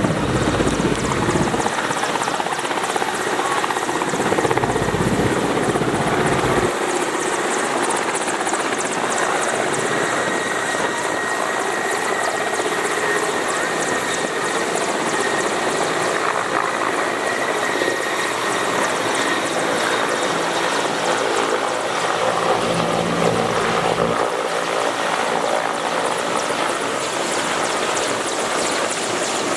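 Mi-17 transport helicopter's rotors and turbine engines running loud and steady as it comes in to land, with a constant fast beat of the rotor blades. Gusts of rotor downwash buffet the microphone a few times.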